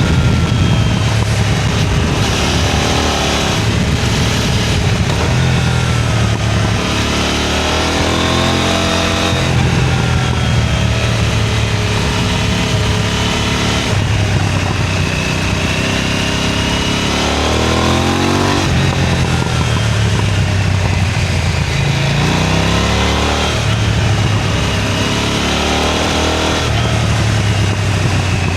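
KTM 990 Duke twin-cylinder engine pulling hard through the gears, its pitch climbing and then dropping at each shift, several times over.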